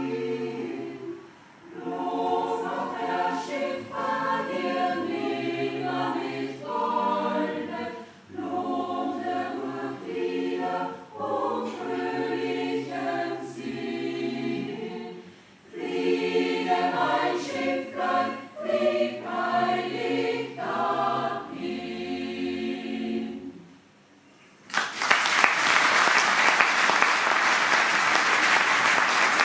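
Mixed choir singing a song in phrases with short breaths between them; the song ends about 23 seconds in, and after a brief silence the audience applauds for the last few seconds.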